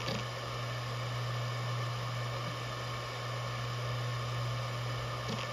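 Maxtor DiamondMax 17 7200 RPM hard drive spinning with a steady low buzz, normal for this model, not a sign of a fault. A few short ticks are heard just after the start and near the end.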